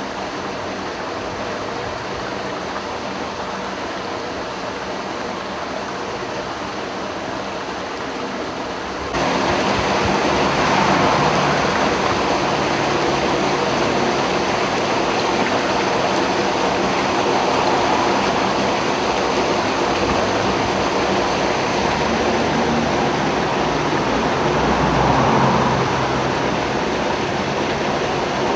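Floodwater rushing and gushing along a street gutter past the curb, a steady watery noise that gets louder about a third of the way in.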